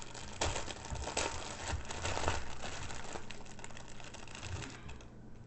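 Plastic packaging crinkling as it is handled, with irregular crackles that are busiest in the first half and thin out toward the end.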